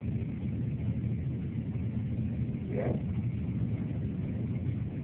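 Ferry's diesel engines running steadily, a low even rumble heard from inside the wheelhouse.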